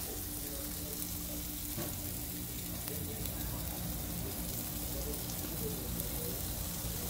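Steaks sizzling steadily on a gas grill, a constant hiss of fat and juices on the hot grates.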